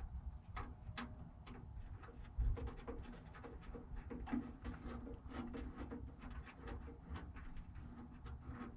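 Scattered small clicks and taps of hands and parts working inside a steel truck door while a replacement door latch is fitted, with a louder knock about two and a half seconds in.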